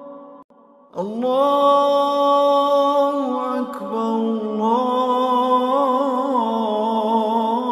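A man's voice chanting a Muharram lament (noha), holding long wordless notes. After a brief break it slides up into a sustained note about a second in, then moves between pitches in slow, wavering ornaments.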